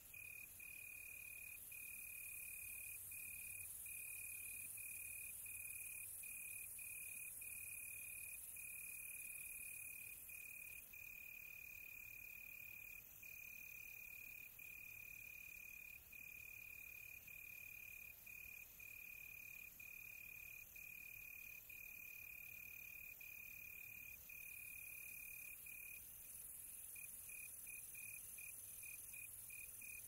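A cricket trilling at night: one steady high-pitched tone in long stretches broken by brief gaps, breaking into quick short chirps near the end, over a faint hiss.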